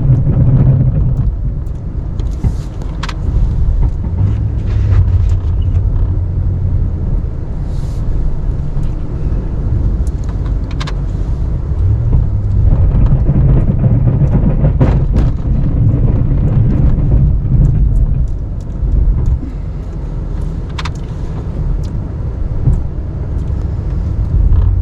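Plow truck's engine running while it pushes snow. Its low drone swells and eases over stretches of a few seconds, with scattered sharp knocks and clicks.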